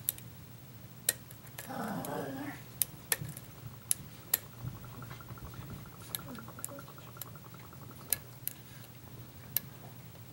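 Small metal clicks and taps from a lock pick and tension wrench working the pins of a pin-tumbler challenge lock, with a fast run of fine ticks in the middle and a brief low murmur about two seconds in.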